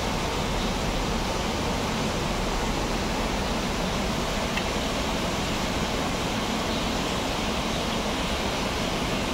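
Steady, even rushing noise of aquarium water flow and filtration.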